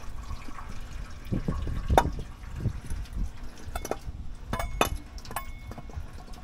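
Coolant dripping and trickling out of a GM LS-style engine's open water-pump ports into a drain pan, with a few sharp knocks and metal clinks from parts being handled.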